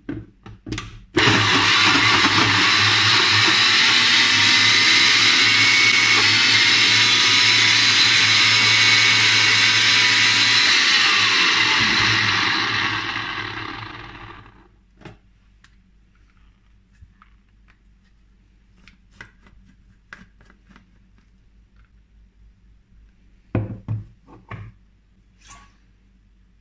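Sencor Nutri Blend 1000 W personal blender grinding spinach and nuts into a paste: a few clicks as the cup is seated, then the motor runs loudly and steadily for about eleven seconds and winds down. Scattered faint knocks and clicks of handling follow, with a short louder cluster near the end.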